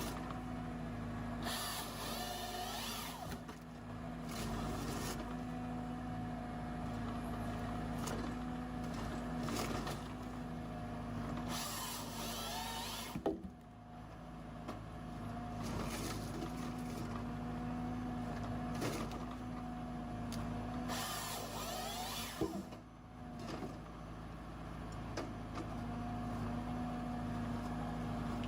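Tractor diesel engine running steadily, driving the Hypro 755 processor, with a few louder stretches of hissing hydraulic and mechanical noise and a couple of sharp clicks.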